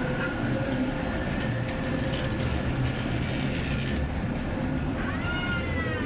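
Tatra K2 tram running, a steady rumble and rattle with a faint steady hum, joined near the end by a whine that rises and then falls.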